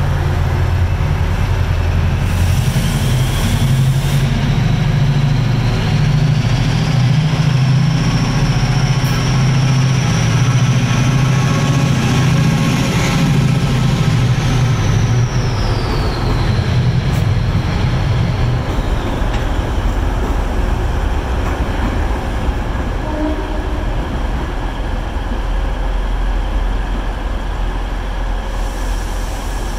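Four coupled Class 68 diesel-electric locomotives, each with a Caterpillar V16 diesel, working hard as they pull away, with a heavy low engine throb and a high whine that climbs in pitch, holds, then falls away as they pass. After about twenty seconds the engine sound fades to a steadier background rumble.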